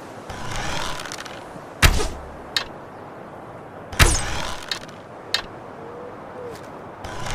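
Wooden bow shooting arrows: a brief rustling draw, then two sharp thwacks with a low thump, about two seconds apart, with a few light clicks after them and another draw starting near the end.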